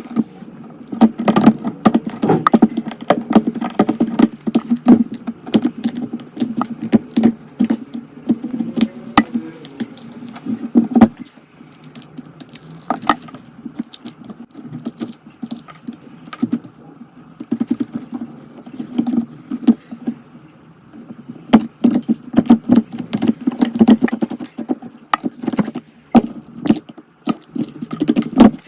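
Irregular clicking, tapping and scraping of hand tools on an iPhone 13 Pro Max's cracked back glass while the glass is being removed. The clicks thin out for several seconds midway, then come thick again.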